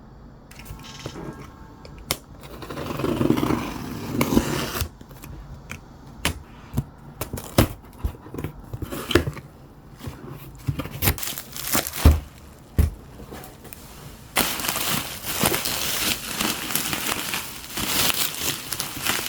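Packaging being handled and opened by hand: plastic and paper crinkling and tearing, with scattered small clicks and taps. A louder rustle swells a few seconds in, and the crinkling turns continuous a little over two-thirds of the way through.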